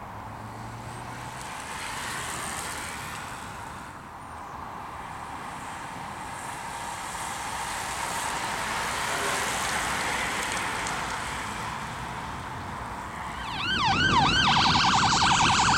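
A bunch of road racing bicycles passing, a soft hiss of tyres on tarmac that swells and fades. About two seconds before the end a loud emergency-vehicle siren cuts in, quick yelping sweeps turning into a fast warble.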